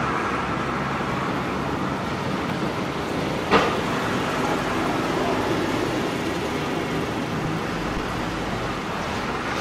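Steady city street and traffic noise, with a single sharp knock about three and a half seconds in.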